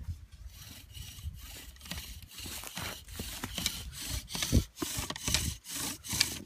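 Bow drill in use: the pine spindle grinding in the notched hearth board as the bow is drawn back and forth, a rhythmic rasping of about three strokes a second that grows louder as the drilling gets going. This is the friction stage of making an ember.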